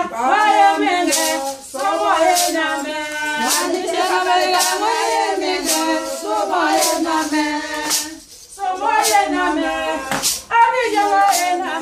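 A group of women singing together, with a sharp clap or beat about once a second. The singing dips briefly near the two-thirds mark.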